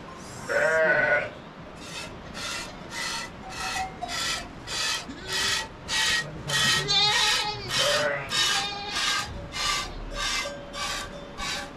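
A goat bleats once near the start. Then come hand-milking squirts of goat milk hitting a metal bowl, a regular hissing stroke about twice a second.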